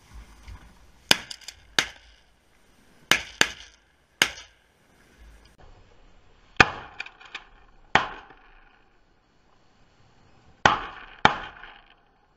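Shotgun shots: about ten sharp reports in clusters of two or three, each with a short echoing tail.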